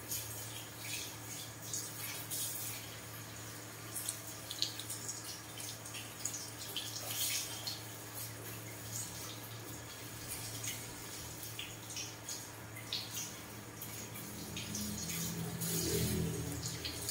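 Water from a handheld shower sprayer rinsing hair over a shampoo basin, with irregular splashes and drips, over a steady low hum.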